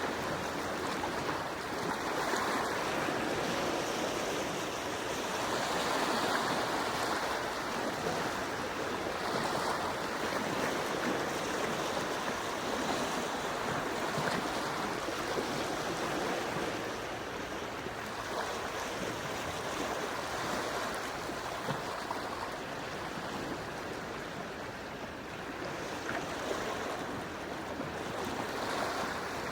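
Calm sea waves washing gently onto the shore: a steady wash of water that swells and eases every few seconds, a little softer in the second half.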